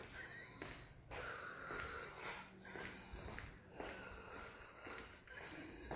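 A woman's laboured, wheezy breathing during an asthma attack: a run of hard breaths, about one a second.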